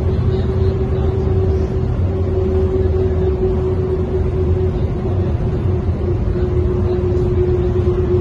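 1998 Mercedes-Benz O405N2 city bus with a ZF Ecomat 5HP automatic gearbox, heard from inside the passenger cabin while driving: a steady low engine rumble with a steady whine held over it.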